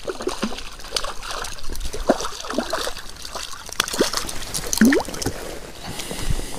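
A small hooked crucian carp thrashing and splashing at the water's surface as it is pulled on the line to the side of an inflatable boat, with irregular sloshing and sharp little water clicks. A short rising squeak stands out about five seconds in.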